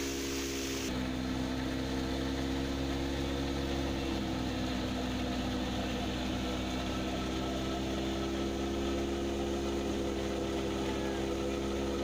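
Wheat thresher running steadily, its engine and belt-driven drum and pulleys making an even mechanical drone.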